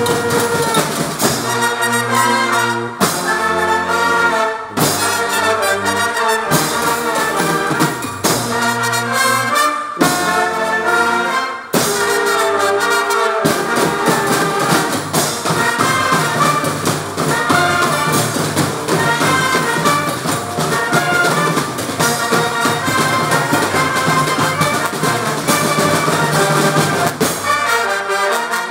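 A banda, a festive brass band of trumpets, trombones, saxophones, clarinets, flutes, sousaphone and drums, playing live. For the first half the band plays in short phrases cut by brief stops, then from about halfway it plays without a break.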